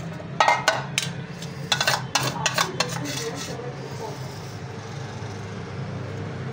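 A steel spoon scraping and clinking against a steel bowl as topping is scraped out onto a naan, in a few quick clusters over the first three seconds. Softer spreading on the bread follows.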